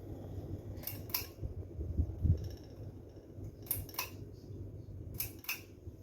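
Harbor Breeze Centerville ceiling fan running with a steady low hum. Three sharp double clicks sound over it, about a second in, near the middle and near the end, with a low thump about two seconds in.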